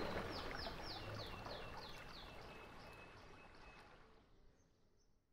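Rushing river water fading out, with a bird singing a run of about ten quick notes that each slide down in pitch, the series stepping lower and speeding up before settling on one lower note.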